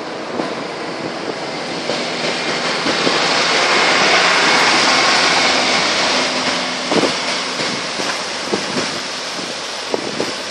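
Tractor-trailer truck passing close by through floodwater on the highway: engine running under a swelling hiss of tyres through water and spray, loudest about halfway through, with a few knocks as the trailer goes past.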